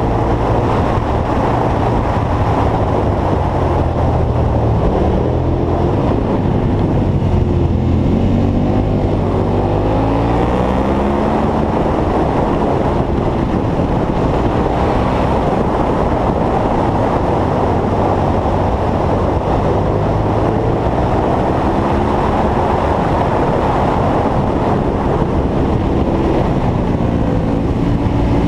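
KTM V-twin motorcycle engine running on the road, its pitch rising and falling with throttle and gear changes, under steady wind rush on the microphone.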